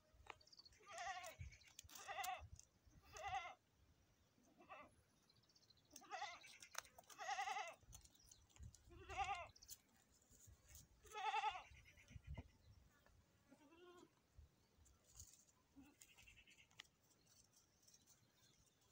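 A goat bleating again and again, about eight wavering calls in the first twelve seconds, then a few fainter ones.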